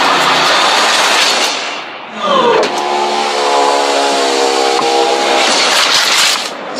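Loud rushing vehicle noise, then a horn dropping in pitch and settling into a long steady blast of about three seconds over continued traffic noise.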